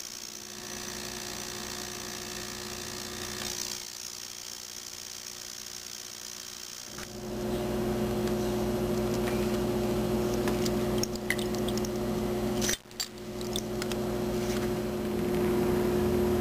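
Ultrasonic cleaner running with its tank full of cleaning liquid: a steady buzzing hum with a liquid hiss, which gets clearly louder about seven seconds in and breaks off briefly near the end. A few sharp clicks come just before the break.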